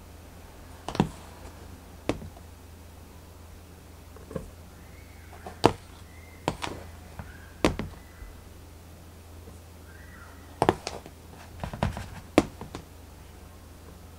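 Flour scoop knocking and tapping against a stainless steel mixing bowl as bread flour is scooped in, about nine sharp knocks at irregular intervals, a few with a faint ring.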